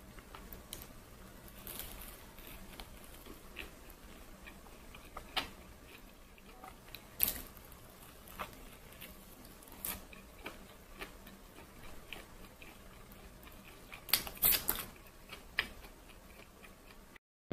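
Close-up eating sounds of a thick egg-and-enoki-mushroom toast being bitten and chewed: faint soft chewing broken by scattered crisp clicks, with a cluster of louder ones near the end.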